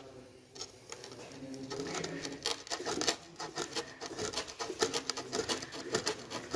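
A metal nut being turned by hand on the threaded tie rod of a permeameter mould clamp, cinching the assembly tight. It makes a fast run of small metallic clicks and scrapes that starts about two seconds in.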